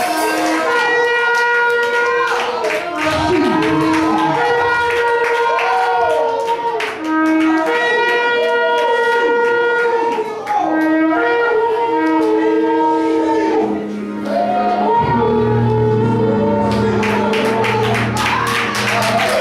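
Several shofars blown together in long held blasts that overlap, each blast breaking off with an upward swoop. About fifteen seconds in, a lower steady tone joins them.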